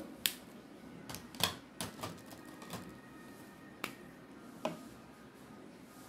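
Sharp plastic clicks and light taps of felt-tip marker pens being handled, about seven in all and spread unevenly, the loudest about a second and a half in.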